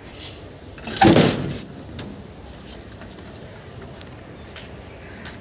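A painted steel door clanking and rattling as it is opened, one loud metallic rattle lasting about half a second, about a second in, followed by a few faint ticks.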